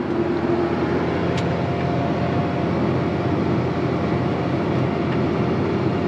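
Tractor engine running steadily under load while pulling a corn planter, heard from inside the cab as an even drone with a faint steady higher hum.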